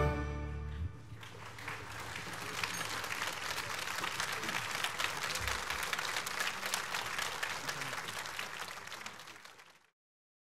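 A symphony orchestra's final chord dying away, then an audience applauding steadily; the applause fades out near the end.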